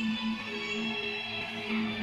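Music from a television: the national anthem played over the players' line-up before a football match, with long held notes.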